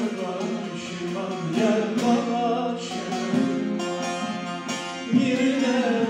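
Bağlama (Turkish long-necked saz) playing the melody of a Turkish folk song as accompaniment.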